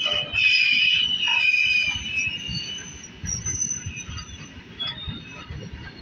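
Loaded open-top steel freight wagons rolling slowly past: the wheels squeal in several high tones, loudest for the first two seconds and then fading, over a low rumble and irregular clanks of wheels over the rails.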